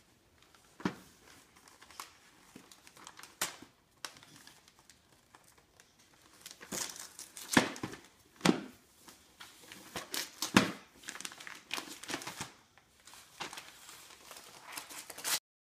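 Gift wrapping paper being torn and crumpled by a toddler's hands as a present is opened: irregular rips and crinkling rustles, the loudest a little past halfway.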